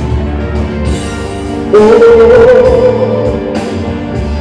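A pop ballad played live over a PA, with a loud long held note coming in a bit under two seconds in.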